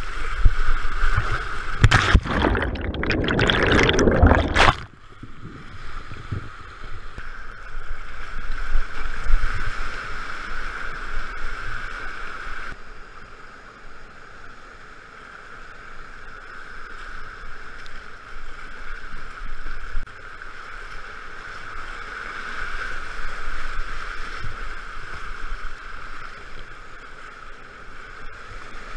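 Whitewater rapids rushing steadily at high flow, heard from a kayak in the current. About two seconds in, a loud splash of water close to the microphone lasts about three seconds.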